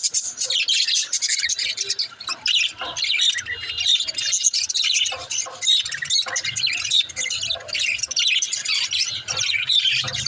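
Several pet budgerigars chattering continuously, a dense warbling mix of high chirps with short squawks.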